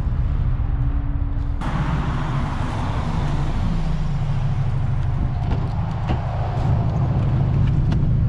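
Honda Civic Type R EP3 running on the road with a Toyosports 4-2-1 de-cat manifold, M2 centre section and Spoon N1 back box: a steady low engine and exhaust drone. About a second and a half in, a steady tone drops out and a broad rushing noise comes in sharply and stays.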